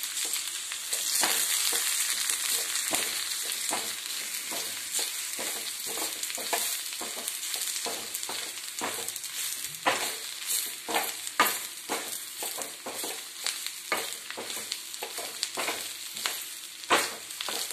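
Onion, garlic, green chilies and grated coconut sizzling in hot oil in a kadai, with a spatula scraping and knocking against the pan at irregular intervals as the mix is stirred.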